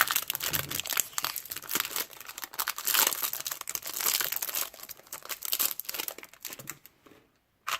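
Plastic packaging crinkling and tearing as a small puzzle cube is unwrapped, dying away about seven seconds in.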